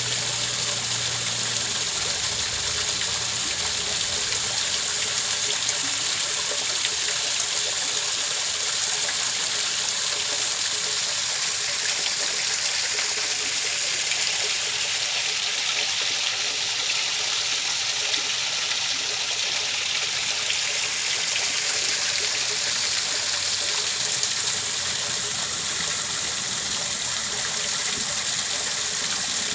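Steady rush of running water, an even unbroken hiss that stays at the same level throughout.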